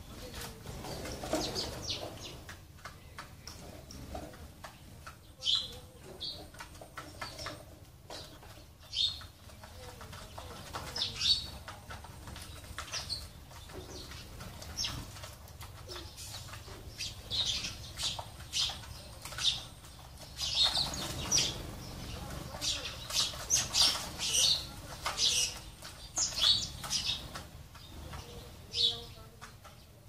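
Sparrows chirping in short, high, repeated notes, more and more often in the second half, with wings flapping as they fly on and off a seed feeder.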